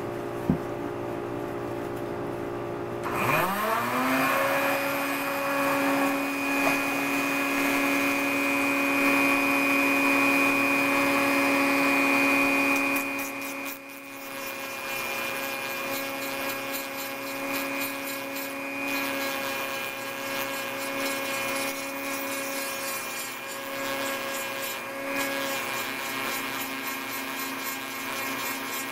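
Dremel rotary tool on its lowest speed spinning up about three seconds in with a rising whine, then running steadily. It drives a heavy-grade sanding drum pressed lightly against a plastic puzzle piece, taking down excess plastic weld. The tool gets quieter about halfway through.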